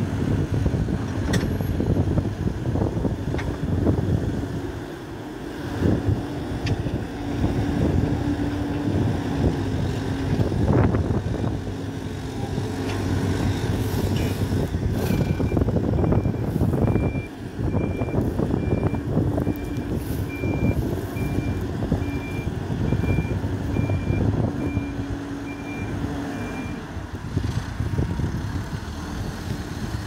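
Hidromek 102B backhoe loader's diesel engine running and revving as it works its bucket in the dirt. Its reversing alarm sounds a steady row of short beeps, a little under one a second, for about twelve seconds in the middle.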